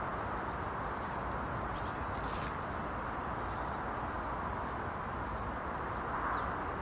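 Steady outdoor background noise with three short, high bird chirps over it.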